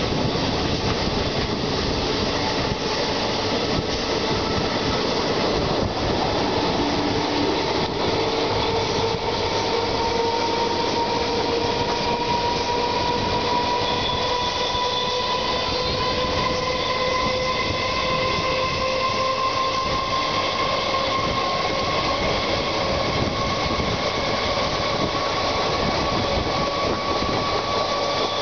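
Steady running noise of an electric multiple unit heard from on board, riding alongside another train. Over it runs the EMU's traction motor whine, slowly rising in pitch as the train gathers speed.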